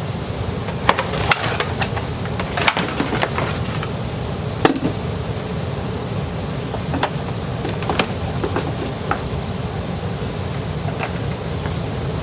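Sewing machine foot pedals and their cords being handled and bagged: scattered knocks and clicks, the loudest about four and a half seconds in, over a steady low hum.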